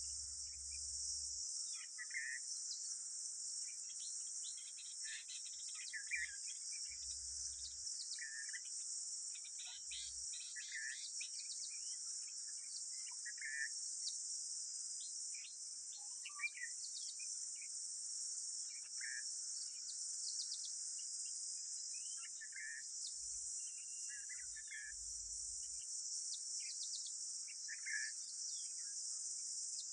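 A steady, high-pitched chorus of insects, with short bird chirps repeating every second or two over it.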